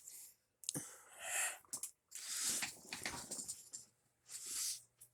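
A person breathing and sniffing close to the microphone, in several short noisy puffs about a second long each.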